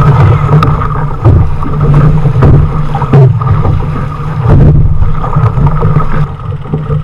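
Wind buffeting the microphone of a camera mounted on an outrigger canoe, over water rushing and splashing along the hull as the canoe is paddled hard. The sound is loud and rumbling, with scattered sharp splashes, and eases a little just before the end.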